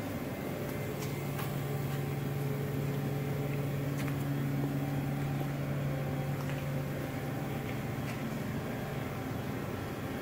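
Steady low hum of a powered-up Daewoo Puma 250BX CNC turning center idling, with the hiss of fans behind it; the hum fades about seven seconds in.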